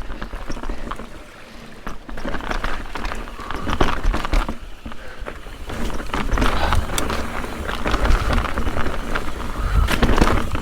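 Mountain bike descending a rough, rocky trail: tyres clattering over rocks and roots, with the bike rattling at each hit and surges of wind rumble on the camera microphone. It eases briefly about a second in, then picks up again.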